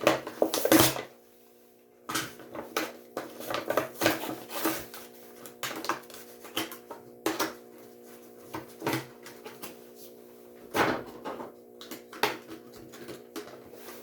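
Die-cast toy car blister packaging being handled and pried open: irregular crackles, clicks and crinkles of plastic and cardboard, with a short pause about a second in.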